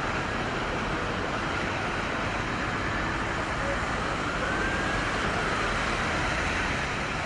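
Steady din of an emergency scene at night, with a distant siren faintly wailing up and down over a murmur of voices.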